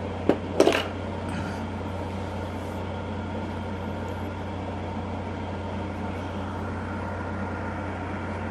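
Steady low machine hum. Two short sharp knocks come a little under a second in.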